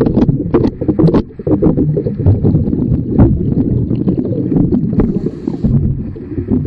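Underwater noise around a scuba diver inspecting a boat hull: a steady low rumble of breathing and exhaust bubbles, with frequent quick clicks and crackles.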